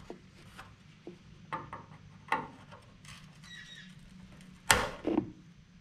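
Small side cutters gripping and popping drilled-out rivet shop heads off a riveted aircraft rib: a handful of scattered sharp metal clicks and snaps, the loudest about three-quarters of the way through.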